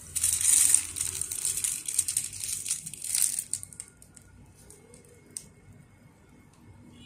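Plastic piping bag crinkling and rustling in the hands as it is twisted and squeezed to pipe icing onto cupcakes, loud for about three and a half seconds and then dying down to faint handling, with one small click near the end.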